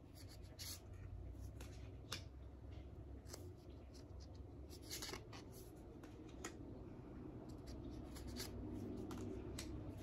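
Oracle cards sliding against each other as they are drawn one at a time off the front of a hand-held deck: short, soft scrapes at irregular intervals, about one a second.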